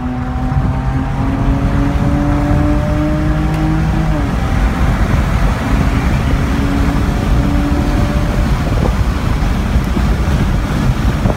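2016 Dodge Challenger's 3.6-litre V6 with the exhaust resonators deleted, heard from inside the cabin, pulling hard at high revs with its exhaust note slowly climbing. About four seconds in the note drops in pitch at an upshift, then settles and fades under wind and road noise at freeway speed.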